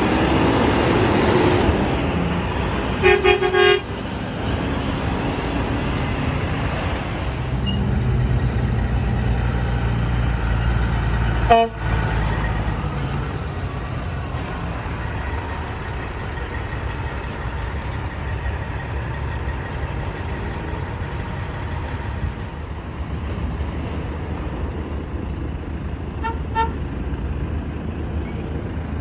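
Road traffic with heavy trucks passing, their engines rumbling. A short, loud horn blast sounds about three seconds in, a sharp knock comes near the middle, and two short horn beeps follow near the end.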